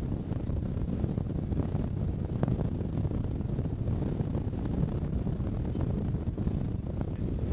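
Wind buffeting the camera microphone: a steady low rumble with no break.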